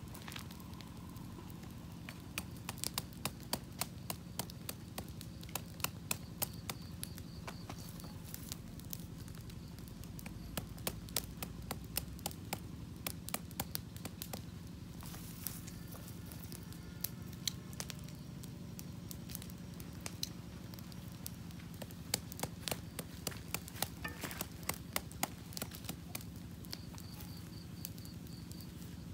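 Wood campfire crackling with irregular sharp snaps that come in clusters, mixed with light knocks of lemongrass being cut and smashed with a wooden pestle, over a steady low hum.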